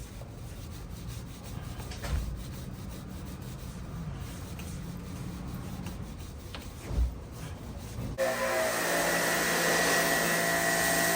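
A stiff brush scrubbing a motorcycle chain, a soft steady rubbing with two dull knocks. About eight seconds in, a pressure washer starts suddenly and runs loud and steady, a whining motor with the hiss of its spray.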